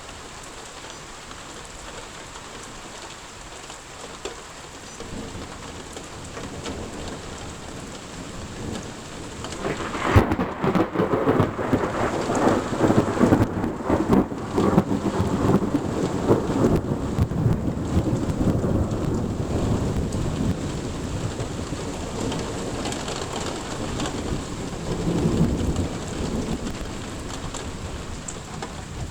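Steady rain falling, with a loud thunderclap about ten seconds in that rolls on as rumbling thunder for several seconds; another swell of rumble comes near the end.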